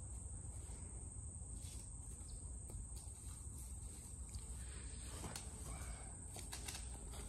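Steady high-pitched drone of insects over a low steady rumble, with a few short clicks and knocks from footsteps on the dirt during a run-up.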